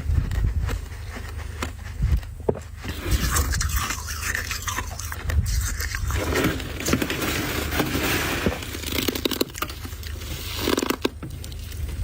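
Freezer frost being scraped and crunched by hand: a dense, irregular run of scratchy scrapes and crackling crunches.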